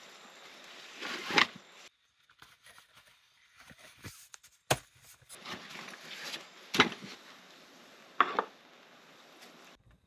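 Fabric seat of a lightweight folding camp chair rustling as it is pulled and fitted over the chair's pole frame, in two spells with a lull between. Several sharp clacks come from the frame as the seat is hooked onto it.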